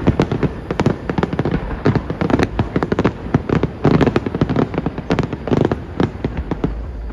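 Fireworks exploding in rapid, dense volleys of bangs and crackles, dying away near the end.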